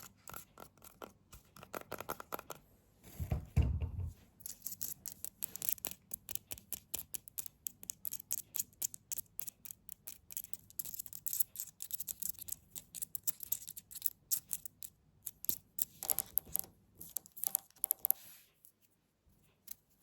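Close-miked ASMR tapping and scratching: a rapid, uneven run of small clicks and taps, with a dull low thump about three and a half seconds in, dying away near the end.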